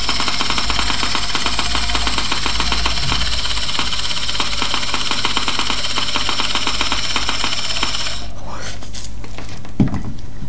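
3Shape TRIOS intraoral scanner wand running while scanning, a steady fast mechanical buzz-rattle from its moving optics, which stops abruptly about eight seconds in as scanning ends. A single soft thump follows near the end.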